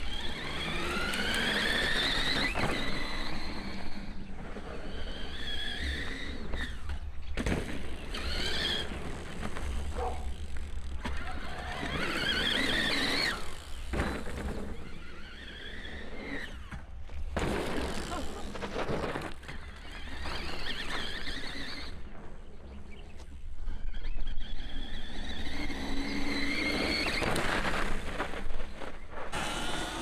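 CYC X1 Pro Gen 4 mid-drive electric motor whining under power on the 72-volt test bike. Its pitch rises as the bike accelerates and falls away again, several times over, above a rumble of riding noise.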